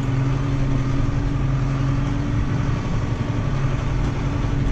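Farm tractor's diesel engine running at a steady speed, heard from inside the cab.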